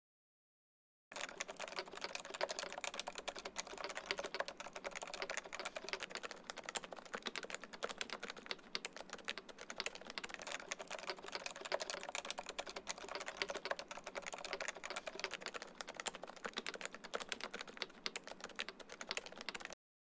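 Fast, steady typing on a Leopold keyboard with Topre switches, its sliders and stabilisers lubed and its alpha keys without silencing rings. The keystrokes start about a second in and stop just before the end.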